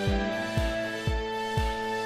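Instrumental background music: held, sustained tones over a soft, low beat about twice a second.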